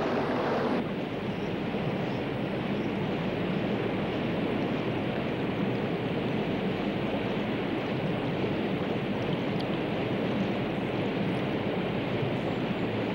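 Steady rushing of a fast-flowing, flooded river.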